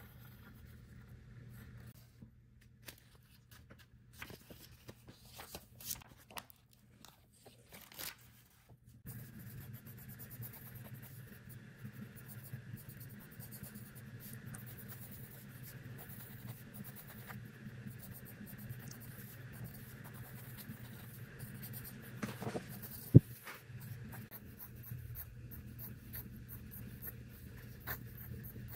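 Pen scratching and tapping on a paper notepad while drawing. From about a third of the way in, a low steady hum sits under the pen strokes, and late on one sharp tap is the loudest sound.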